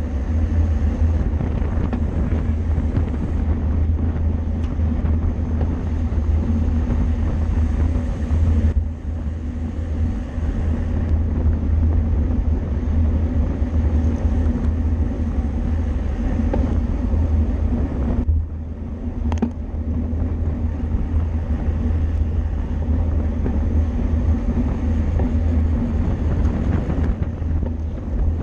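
Wind rushing over the microphone of a camera carried on a racing bicycle at speed: a steady heavy rumble with a hiss above it, easing briefly about nine seconds in and again just past halfway.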